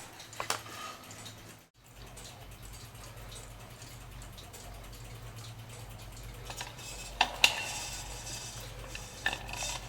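Light handling noises: a few small clicks and taps as pieces of the clock case are moved and set down, clustered toward the end, over a steady low hum.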